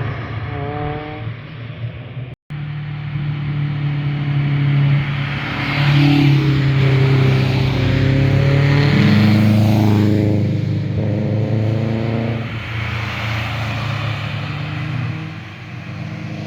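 Performance cars accelerating up through the gears and passing by, engine and exhaust notes rising and falling, loudest in the middle as a car goes past. A sudden split-second dropout about two seconds in, like an edit cut.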